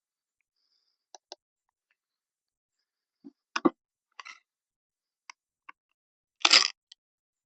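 Scattered clicks and knocks of small parts and tools being handled while an old radio speaker is taken apart. There are a few light ticks, a firmer knock around the middle, and a short louder clatter near the end.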